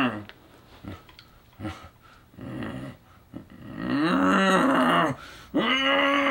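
A man growling in a zombie voice: two long drawn-out growls, about four and about six seconds in, each rising and then falling in pitch, with only small scattered noises before them.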